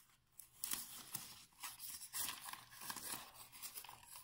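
Sheets of paper rustling and crinkling in irregular bursts as hands handle them and tape down a flap.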